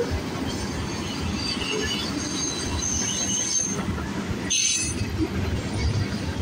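Freight train cars rolling past: a steady rumble of steel wheels on rail, with brief high-pitched wheel squeals coming and going, the strongest about four and a half seconds in.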